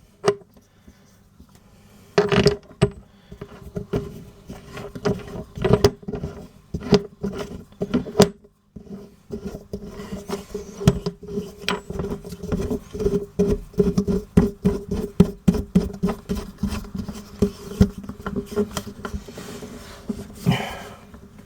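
A run of irregular clicks and knocks as the mounting hardware of a motorcycle top box is tightened with a tool, over a steady hum.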